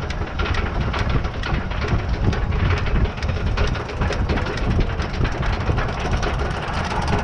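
Roller coaster car climbing its chain lift hill: the anti-rollback ratchet clicks evenly a few times a second over a steady low rumble of the lift.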